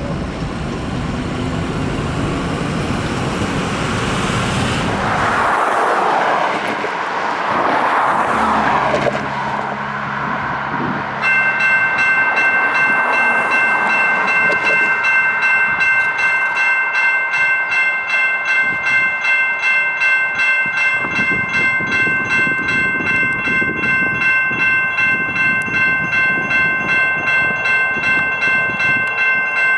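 A train rumbling past a grade crossing, cut off about five seconds in; some seconds later a railroad crossing's warning bell starts ringing and keeps going at about two strikes a second, its ring hanging in steady overlapping tones: the crossing signals activating.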